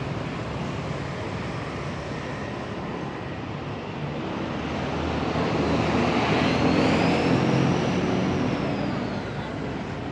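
City street traffic: a steady hum of motorbikes and cars, swelling as a vehicle passes close from about five to nine seconds in, with a high whine that rises and then falls as it goes by.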